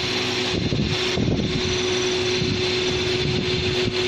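Hydraulic peanut oil press running: a steady mechanical hum with a constant tone over a rough, even rumble.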